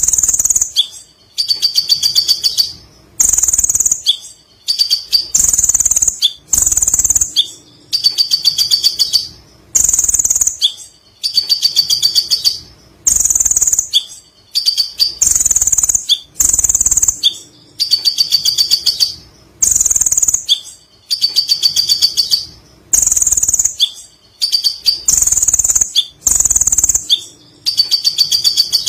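Kolibri ninja (Van Hasselt's sunbird) singing: a loud, high, fast-trilled chattering phrase about a second long, repeated over and over with short pauses, about every two seconds.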